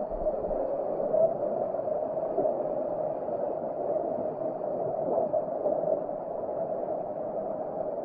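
Steady, muffled rush of flowing river water, dull and without any high sound.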